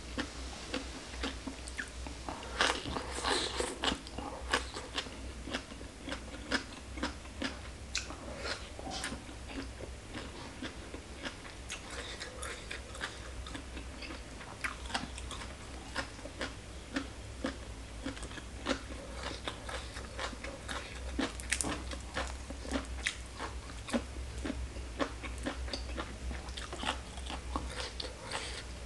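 Close-miked chewing and biting of green papaya salad and crisp raw vegetable stems, with many short crisp crunches throughout. The crunching is densest about three seconds in.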